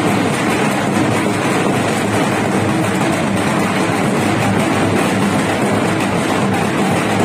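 Procession dhol drums beaten continuously together with crowd noise, a loud, dense and steady din without pauses.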